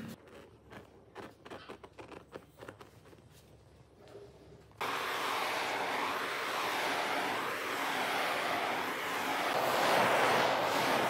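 Faint scattered clicks and knocks, then about five seconds in a handheld butane torch's flame starts abruptly and hisses steadily as it is passed over an epoxy tabletop.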